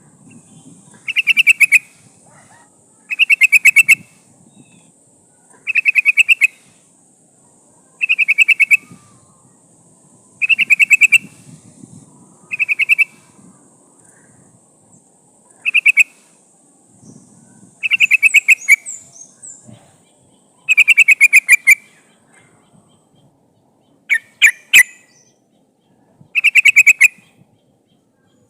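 Yellow-vented bulbul (trucukan) giving about ten short, rapid bubbling phrases, one every two to three seconds. The call is the one offered as a female calling a male, used as a lure for wild birds.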